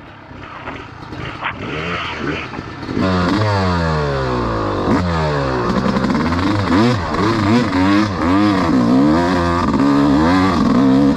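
Yamaha YZ250X two-stroke dirt bike engine, low and fainter at first, then from about three seconds in revving hard under load up a steep dirt climb, its pitch rising and falling again and again with the throttle.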